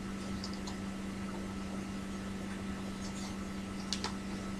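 Steady low electrical or fan hum, with a few light clicks and taps of cards being handled and a sharper double click about four seconds in.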